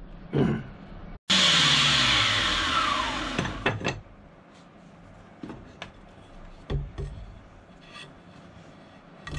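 Bosch electric hand planer's motor and cutter head spinning down after being switched off, starting abruptly about a second in, its whine falling steadily in pitch and fading out over about two and a half seconds. A few light knocks of tools and wood being handled follow.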